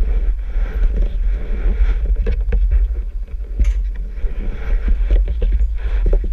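Low, muffled rumble of go-kart engines idling in a queue, with scattered knocks and clicks throughout.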